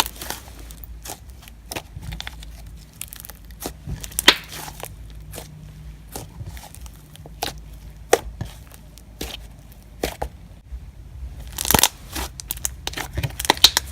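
Sorbet slime being squeezed, stretched and poked by hand, giving irregular sharp clicks, pops and crackles, with a denser run of pops near the end.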